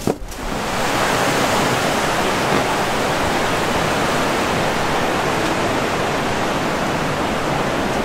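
A steady, loud rushing noise with no pitch or rhythm, setting in right after a sharp click at the start and holding even throughout.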